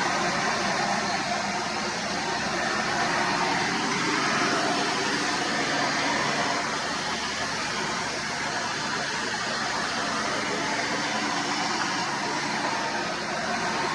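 Hoover Runabout Deluxe vacuum cleaner running steadily: an even rush of air with a faint motor hum under it.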